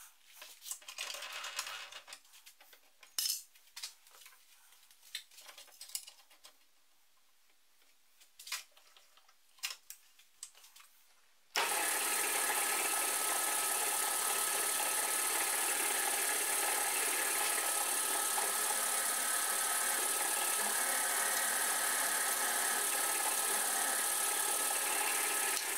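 Scattered clicks and a short scrape of tools being handled, then about halfway through a benchtop drill press starts suddenly and runs at a steady, constant level while a small twist drill bores into the spinning steel workpiece, cutting off at the very end.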